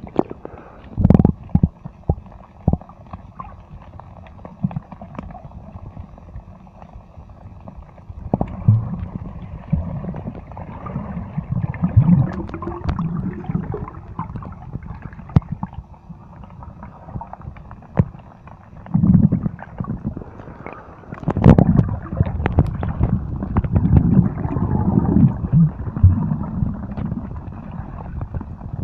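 Water sloshing and gurgling, with low irregular rumbles that come in uneven surges, louder in the second half, and a few sharp knocks near the start.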